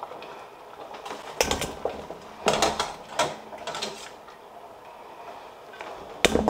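Metal tongs clacking against a steel pot and boiled potatoes being set down into a stainless steel mixing bowl: several sharp clanks and knocks, one about a second and a half in, a cluster around two and a half to three seconds, and one more near the end.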